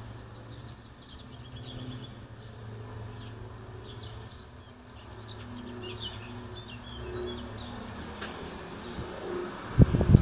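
Small birds chirping in the background, short high calls scattered throughout. A few loud low bumps come near the end.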